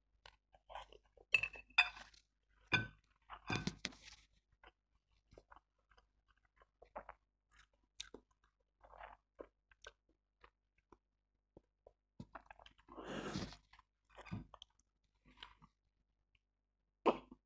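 Close-miked eating sounds: black bean noodles slurped and chewed, with a flurry of wet mouth noises in the first few seconds and then scattered small chewing clicks. Near the end comes a sip of iced tea.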